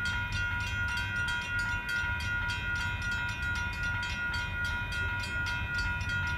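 Level-crossing warning bell ringing steadily with rapid, evenly spaced strokes while the crossing signals are active, over a low rumble.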